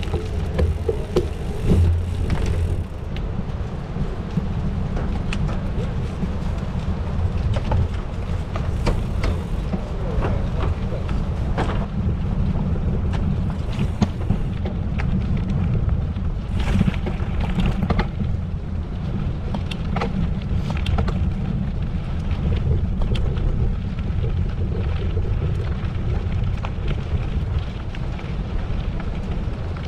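Wind buffeting the microphone while a gravel bike rides over a gravel road, with tyre crunch and frequent sharp clicks and rattles from the bike on the rough surface.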